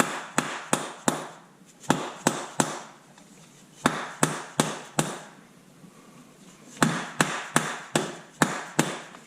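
Dead blow hammer striking the end of a CV axle to drive it into place, in quick groups of three or four sharp blows, about three a second, with short pauses between groups. The axle is stubborn to seat.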